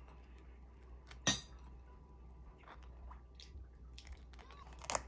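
Small household objects being handled: a sharp clink about a second in, a few light ticks, and another clink near the end, over a faint low hum.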